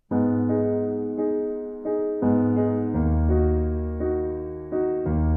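Background music: a slow piano piece of held notes over low bass notes, starting suddenly at the beginning.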